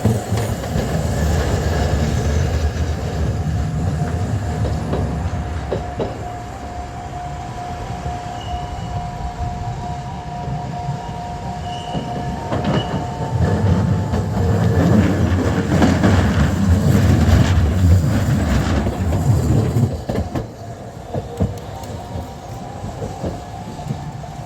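Two Kagoshima City Tram streetcars, cars 2114 and 7003, passing each other over a level crossing, their wheels rumbling and clacking on the rails. One is passing at the start, and a louder pass comes about 13 to 20 seconds in, with a steady high tone running until about 20 seconds in.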